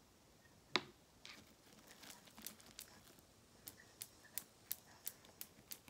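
Sticky slime being pressed and kneaded by hand on a tabletop, giving faint clicks and pops as it sticks and pulls away. One sharper click comes a little under a second in, then a quick, irregular run of small clicks in the second half.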